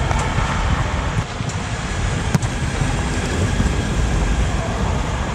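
Steady low rumble in a large air-supported sports dome, with a few sharp knocks of a volleyball being hit during a rally, the clearest a little past halfway.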